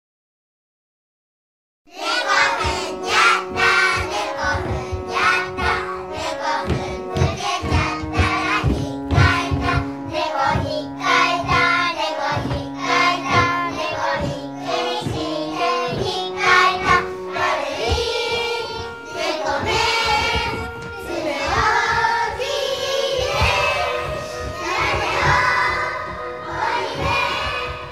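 Film opening music that starts abruptly about two seconds in after silence: held pitched notes over a busy percussive pulse, with voices singing over it in the second half.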